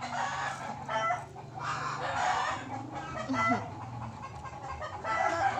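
Chickens clucking, short calls about once a second.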